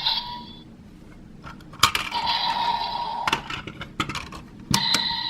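DX Dark Seiza Blaster toy playing electronic sound effects through its small speaker, each set off by sharp plastic clicks from working the toy. A click about two seconds in starts a tone that stops with another click a second and a half later. A few more clicks near the end start another sound.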